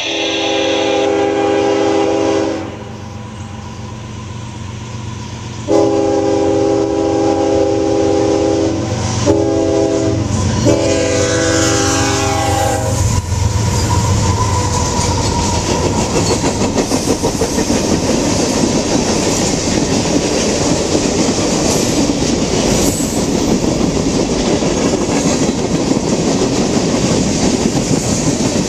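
A CSX freight train's diesel locomotive horn blows four blasts: long, long, short, long, the standard grade-crossing signal. The locomotives then pass close by with a loud engine rumble, followed by freight cars clattering over the rail joints.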